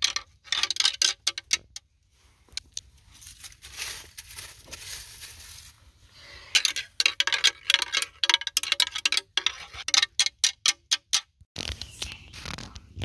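Deer antlers knocked and rattled together, a clattering of sharp clicks: a short spell near the start, then a long dense run in the second half. This is antler rattling, the hunter's call that imitates sparring bucks. A low rumble comes in near the end.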